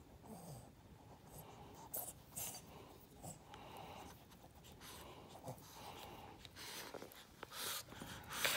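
A marker scratching on paper in a string of short strokes, with rustling and handling of the paper.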